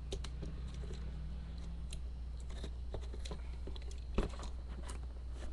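Plastic parts of a Transformers Animated Blitzwing action figure clicking and rattling as the toy is handled and folded during transformation, with one sharper click about four seconds in. A steady low hum runs underneath.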